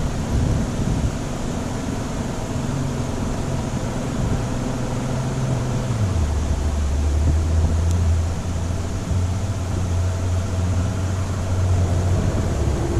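A boat motor running steadily, its low hum dropping in pitch about six seconds in, with wind noise on the microphone.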